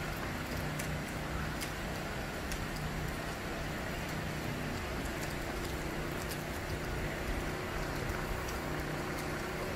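Steady outdoor street ambience: an even wash of noise with a low, steady hum and a few faint ticks.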